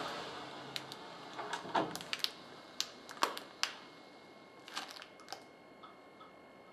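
A scatter of sharp, irregular light clicks and taps, about a dozen in the first five or so seconds, over faint room hiss that fades away.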